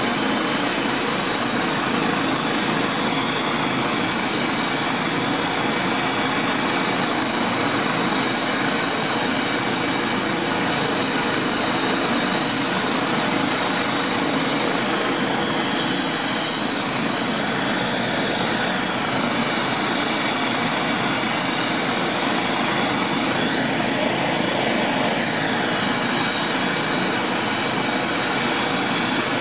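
Air ambulance helicopter running on the ground before take-off: a steady turbine whine over the rush of the engines and rotor. The whine wavers slightly in pitch about midway and again later.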